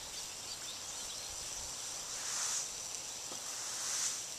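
Toy caterpillar lawn sprinkler spraying water over the grass: a steady high hiss that swells twice.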